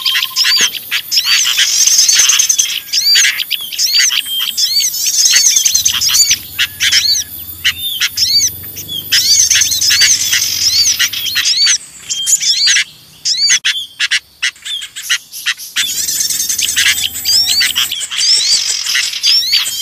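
Bird-lure recording of a noisy flock: sooty-headed bulbuls (kutilang) and small songbirds calling together in a dense chatter of rapid, high, arched chirps. It thins briefly a little past the middle.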